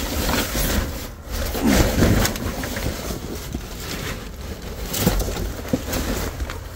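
Paper notebooks and cardboard rustling, sliding and knocking as they are shuffled through by hand in a dumpster, with many small scattered crackles over a steady low rumble.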